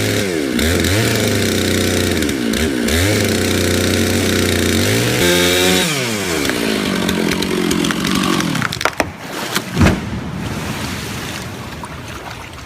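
Gasoline chainsaw engine revving up and dropping back again and again as it cuts. About nine seconds in come a few sharp cracks or thumps, then the saw fades away.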